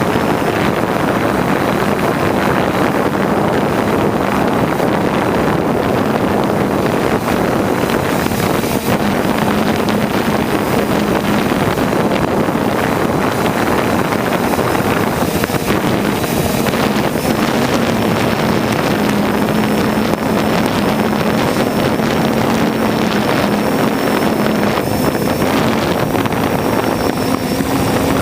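Quadcopter drone's propellers and motors humming steadily in flight, with wind buffeting the microphone. The motor pitch creeps slightly higher over the stretch.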